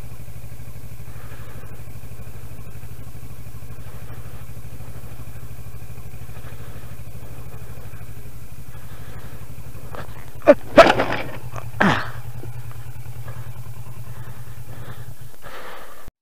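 Kawasaki Versys 650's parallel-twin engine running steadily, then about ten seconds in a few sharp, loud knocks and thuds as the motorcycle goes down in the snow. The engine stops near the end.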